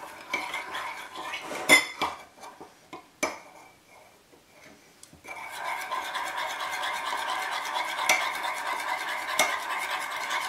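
Metal spoon stirring egg and Nutella in a ceramic mug: a few sharp clinks against the mug in the first half, then steady, fast scraping and stirring from about halfway in.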